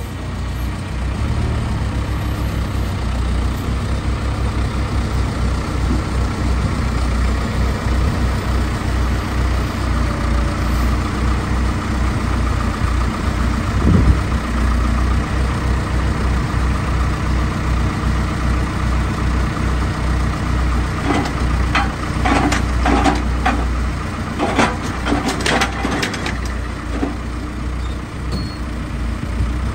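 Heavy machinery engine running steadily under a log loader at work. There is a single knock about halfway through, and near the end a run of clanks and knocks as a long log is set down onto a firewood processor's log deck.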